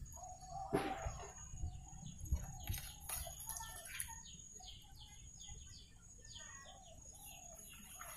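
Birds calling: a run of short, quick downward-sliding notes, about four a second, with one sharp knock a little under a second in.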